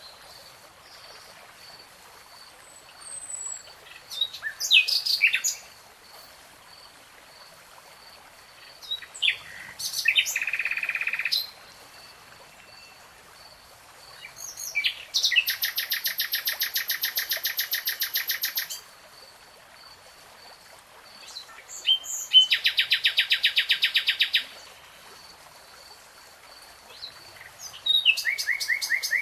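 Songbird singing in a forest, repeating its song about every six seconds: a few quick high notes, then a long fast trill of evenly spaced notes lasting up to three or four seconds. A faint, steady, high repeated note runs underneath between the songs.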